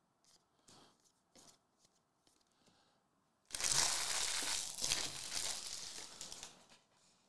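A few faint taps of cards being handled, then about three seconds of loud crinkling and tearing of a hockey card pack wrapper.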